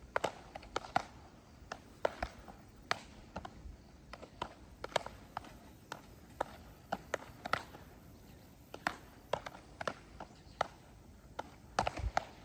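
A run of sharp, irregular knocks and clicks, two to four a second, some louder than others.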